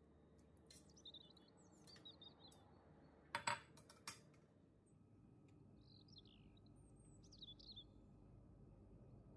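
Faint bird chirps in the background, with a couple of sharp kitchenware clinks about three and a half and four seconds in, the loudest sounds here.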